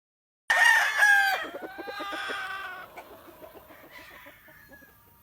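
A gamefowl rooster crowing once: the call comes in loud about half a second in, then drags out and fades over the next few seconds.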